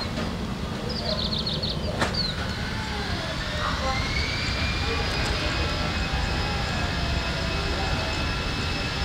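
An Airbus A320 airliner's jet engines rising in pitch to a high whine and then holding it steady as the plane rolls along a wet runway, over a steady low rumble.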